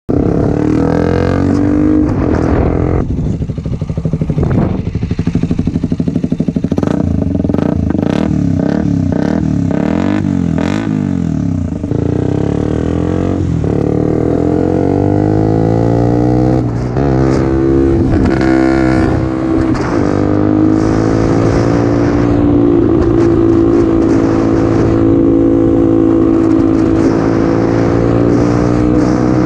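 KTM Duke 125's single-cylinder four-stroke engine through a RadicalRacing aftermarket exhaust, heard from the bike. For the first ten seconds or so the revs rise and fall with sharp exhaust pops mixed in (backfiring on the overrun), then it pulls up through the gears with a break at each shift and settles into a steadier run.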